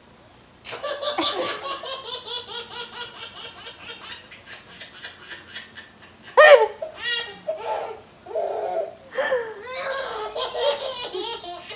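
Hearty, high-pitched laughter in fast repeated bursts, starting just under a second in. A short, very loud vocal burst with a sweeping pitch comes about six and a half seconds in, and then the laughter picks up again.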